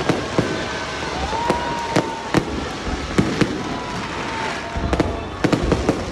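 Aerial fireworks display: a rapid, irregular series of sharp bangs over continuous crackling, with a clustered run of bangs near the end. A whistling tone rises about a second in and holds for a few seconds.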